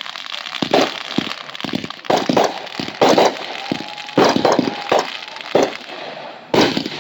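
Fireworks exploding: a rapid string of loud bangs, about a dozen in seven seconds, with crackling between them.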